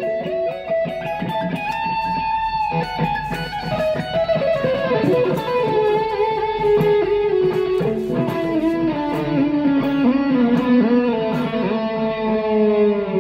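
2019 Fender Mexico Standard electric guitar played through a Korg AX3000G multi-effects processor on a solo patch. It plays a lead line of sustained single notes with string bends and vibrato, ending on a held note that fades.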